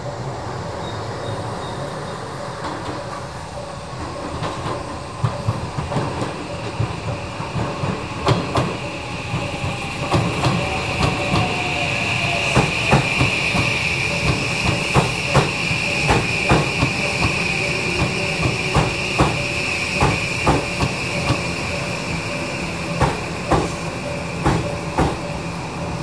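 Odakyu 1000-series electric train rolling slowly past into the station, its wheels clacking over the rail joints at roughly one to two clicks a second. A steady high wheel squeal runs through the middle of the pass.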